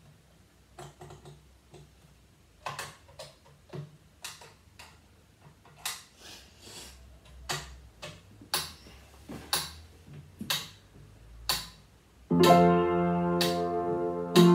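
Metronome ticking steadily, about two clicks a second; about 12 seconds in, piano playing begins at a slow tempo over the ticking.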